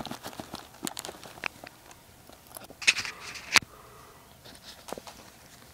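Nylon backpack rustling and clicking as a cat noses at it and a hand handles it, with a louder rustling scrape and two sharp clicks about three seconds in.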